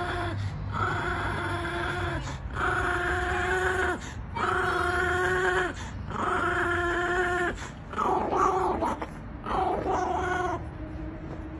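Small dog making a string of long, high-pitched whining growls, each a little over a second long with short breaks between, turning shorter and more broken near the end. The dog is growling in play while tugging on a stick with a bigger dog.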